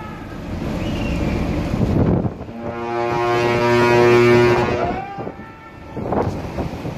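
A ship's horn sounds one long, steady blast lasting about two and a half seconds, starting a little over two seconds in, with wind noise on the microphone before and after it.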